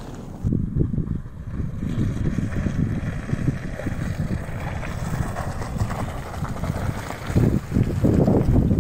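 Wind buffeting the microphone over the low rumble of a Mazda CX-5 2.2 diesel SUV driving through a muddy field, growing louder near the end as it comes close past.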